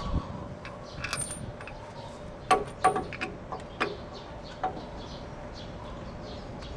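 Metal tools or hardware clinking: a handful of sharp metallic clicks with a short ring, four or five of them spread over about two seconds.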